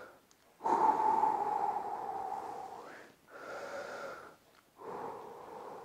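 A man breathing heavily while catching his breath after an exercise set: one long, loud breath of about two seconds, then two shorter breaths.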